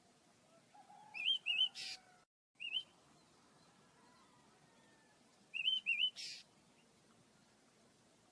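Small pet birds chirping: two bouts of quick paired chirps, each ending in a short harsh rasping note.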